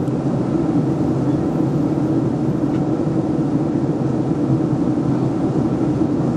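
Steady cabin noise of a Boeing 737-700 in flight: an even hum of its CFM56-7B engines and the airflow over the fuselage, heard from a window seat.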